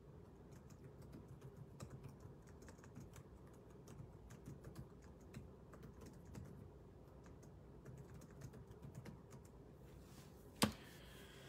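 Quiet typing on a computer keyboard: quick, irregular key clicks, with one sharper, louder click near the end.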